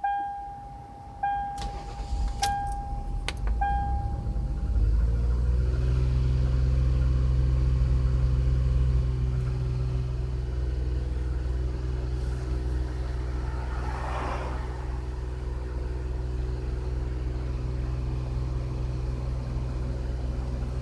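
A car's warning chime repeats about every second for the first few seconds. Then the Lexus RX300's 3.0-litre V6 starts, rises in pitch and settles into a steady, fast idle. The idle stays high, which the owner puts down to the idle air control valve sitting too far open.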